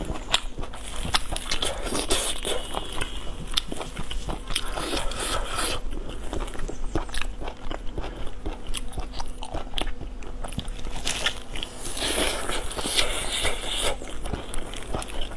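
Close-miked eating: a person biting, tearing and chewing braised meat, a dense, continuous run of small mouth clicks and smacks.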